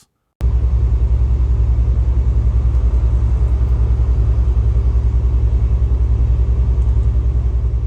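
A motor vehicle's engine running: a loud, steady low rumble with a fast, even pulse, starting suddenly about half a second in.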